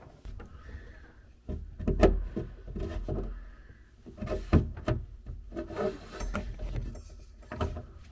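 Scraping, rubbing and irregular knocks as a dishwasher power cord and its plug are pushed through a tight hole in a wooden cabinet wall, starting about a second and a half in.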